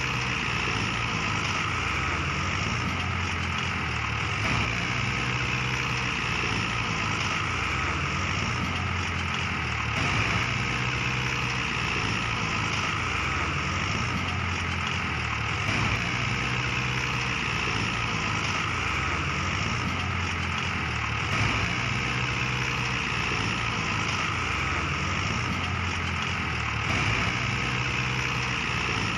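Mini tractor's engine running steadily under load while pulling a loaded trolley, with a slight swell about every five to six seconds.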